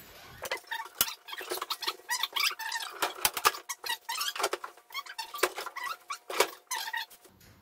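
A quick, dense run of squeaks, clicks and scrapes as a pellet stove insert is pushed and slid into a fireplace, stopping just before the end.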